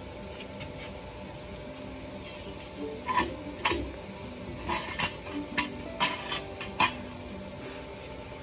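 Steel jack stand and floor jack clanking as the stand is pulled from under the car: a run of about eight sharp metallic clinks and clanks over roughly four seconds, starting about three seconds in.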